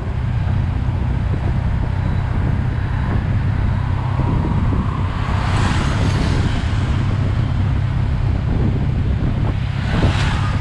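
Riding in a motorcycle-drawn tuk-tuk: the motorcycle's engine runs steadily under road and wind noise, with louder swells about halfway through and again near the end.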